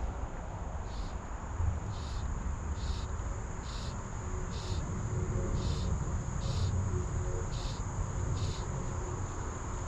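Insects, likely crickets, calling at the waterside: a steady high-pitched buzz with short chirps repeating roughly once a second, over a low rushing background.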